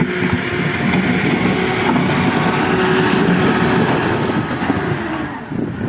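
Diesel engines of heavy construction machinery running steadily, easing off a little near the end.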